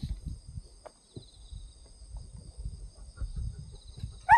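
Footsteps and rustling on a dirt path with faint insect calls in the background; right at the end a Siberian husky starts to whine.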